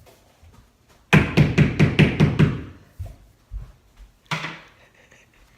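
Banging on an apartment ceiling: a quick run of about eight loud knocks, about five a second, then one more single bang a few seconds later.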